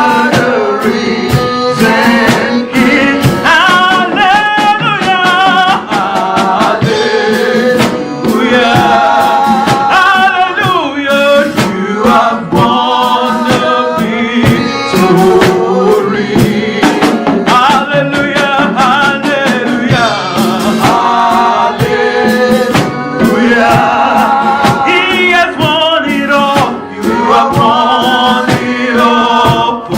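Gospel worship song: sung melody with vibrato over instrumental accompaniment and a steady drum beat.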